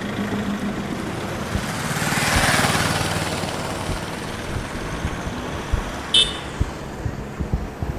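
Road traffic: a steady rumble of engines, with a vehicle passing that swells and fades about two to three seconds in. A brief high beep, like a horn toot, sounds about six seconds in.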